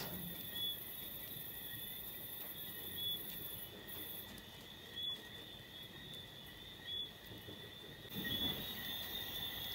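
Night insects: a steady high trill, with a short high chirp about every two seconds.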